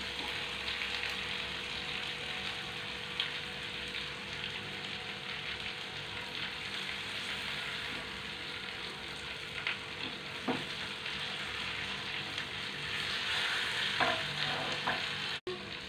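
Chicken pieces sizzling steadily in a non-stick frying pan, with a few light clicks of a spatula against the pan near the end.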